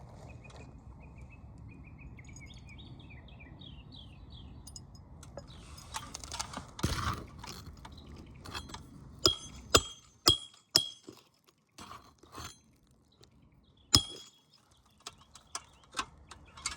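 Metal roofing tools clinking and tapping on an asphalt shingle roof while a replacement shingle is secured: a string of sharp knocks from about six seconds in, several ringing briefly. Faint bird chirps come before them.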